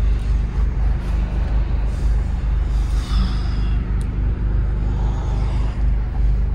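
Honda Civic Si's K24 four-cylinder, fitted with an aftermarket downpipe, running steadily at low revs with no revving: an even, low exhaust drone heard from inside the cabin.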